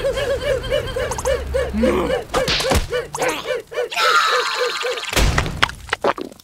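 A cartoon character's voice making rapid, evenly repeated syllables, about four a second, that fade out after about four seconds, with several thuds and whacks of cartoon sound effects in the second half.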